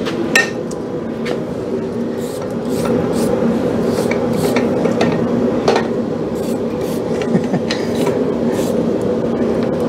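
Scattered sharp metal clinks and scrapes as a twisted steel bar and tongs are handled and set in a steel bench vise, over a steady rushing roar.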